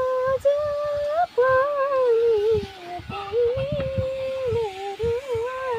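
A woman singing a Nepali song unaccompanied, in long held, wavering notes, with soft knocks of a knife chopping on a cutting board underneath.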